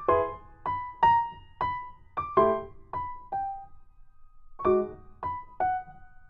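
Background piano music: a slow melody of single struck notes, each fading out, with a short pause just past the middle.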